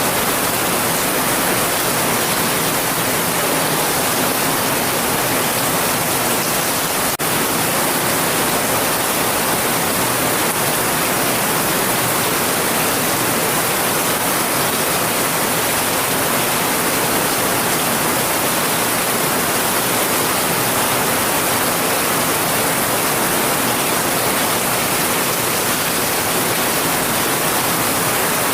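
Heavy rain falling in a steady, even downpour, loud and unchanging, with a momentary dip about seven seconds in.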